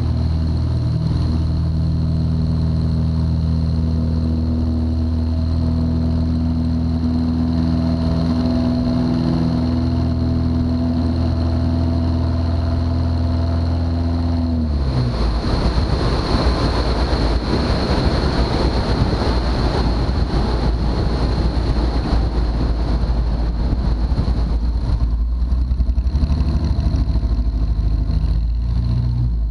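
1957 Cessna 172's six-cylinder Continental O-300 engine running steadily. About halfway through its even drone drops away and a rough, uneven rumble takes over.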